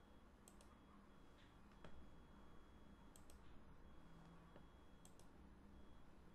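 Computer mouse button clicks, mostly a quick press-and-release pair each time, three times over a few seconds with a lone softer tick between, over faint room hum.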